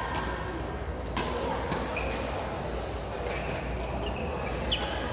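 Badminton rackets hitting a shuttlecock in a rally: sharp hits about every half second to a second, some with a short high ring from the strings, over the steady hum of a large sports hall.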